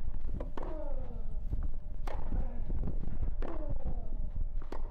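Tennis rally on a clay court: four racket-on-ball hits about a second and a half apart, each followed by a short, falling grunt from the player, over a low steady rumble.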